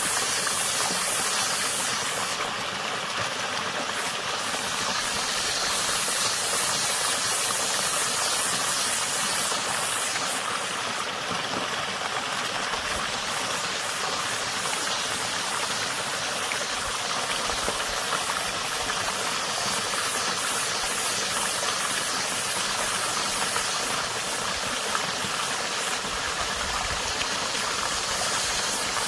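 Water running steadily in a small stream, an even rushing hiss without pauses.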